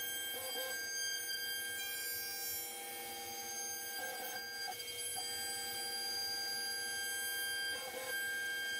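The servo-driven greenBull v2 CNC router runs a cut, giving a steady whine of several tones. The lower tones shift briefly about half a second in, around four seconds and near the end as the gantry moves.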